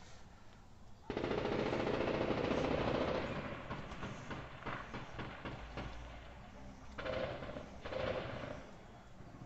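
Automatic gunfire: a long, dense burst of rapid shots starts about a second in, thins out to scattered shots, and a second burst comes near the end.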